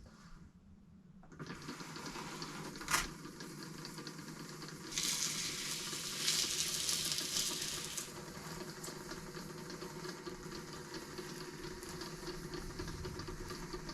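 Hoverboard hub motors driving a robot's wheels over the ground: a steady hiss with a low hum, a sharp click about three seconds in, and louder hissing from about five to eight seconds.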